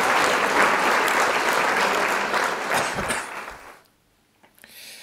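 Applause that fades out about three and a half seconds in, followed by a moment of silence and then faint room sound.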